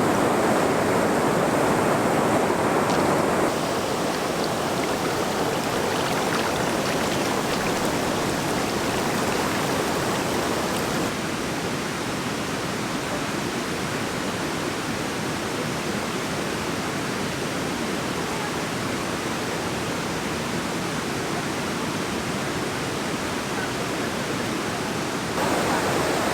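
Valley stream water rushing steadily. The level drops abruptly about a third of the way in and again near the middle, then jumps back up just before the end.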